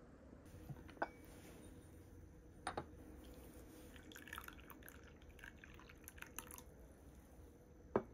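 Green tea poured from a porcelain teapot into a porcelain teacup: a faint trickle and splash of liquid, with a few light knocks of porcelain before it and a louder knock near the end as the pot is handled.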